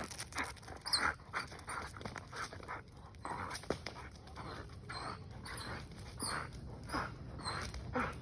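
Dog panting hard in quick, rhythmic breaths, about two or three a second.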